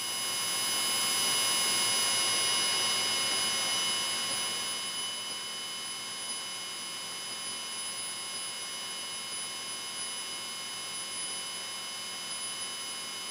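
Steady electrical hum and several high, thin whine tones over a soft hiss, as heard through a light aircraft's headset intercom audio. The hiss swells over the first couple of seconds, then eases and holds steady.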